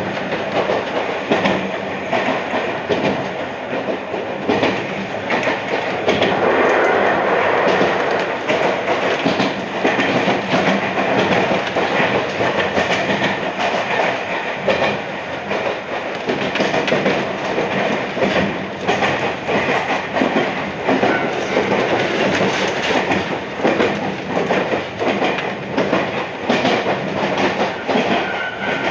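Iyotetsu 3000 series electric train running along the line: a steady rumble of wheels on rail with frequent clacks from the rail joints, heard from inside the leading car.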